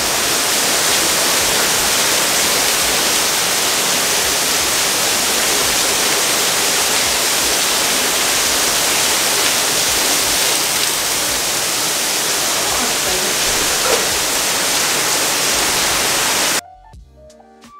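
Heavy rain pouring down as a loud, steady hiss. About sixteen and a half seconds in it cuts off abruptly and music with a drum beat takes over.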